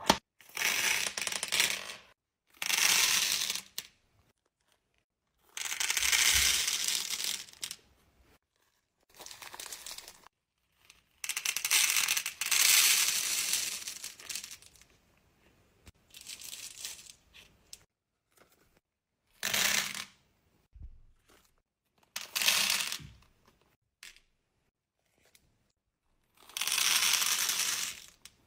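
Pearl beads poured from clear plastic bags into a clear plastic compartment organiser box, a clattering rattle mixed with the crinkle of the bags. This comes in about nine separate pours of one to three seconds each, with short pauses between.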